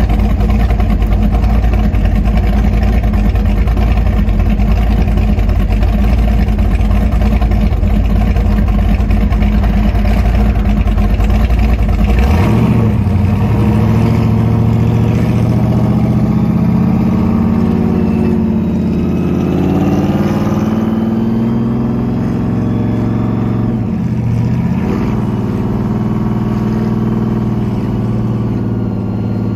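Supercharged V8 of a 1968 Mustang GT500 replica, its blower standing up through the hood, idling loudly as heard from the driver's seat. About twelve seconds in it pulls away and the engine note rises under acceleration, with a gear change later on.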